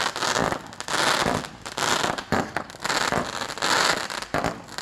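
Consumer aerial fireworks going off in rapid succession: dense crackling and popping with repeated loud bursts.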